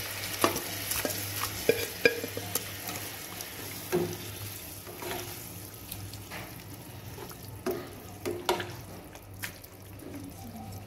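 Black spatula stirring squid in a wet masala gravy in a pan, with irregular scrapes and knocks against the pan over a light sizzle of the cooking gravy.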